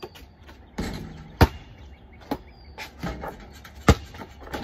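Basketball bouncing off hard ground: a handful of sharp, irregular bounces. The loudest come about one and a half seconds and four seconds in, with softer thuds between.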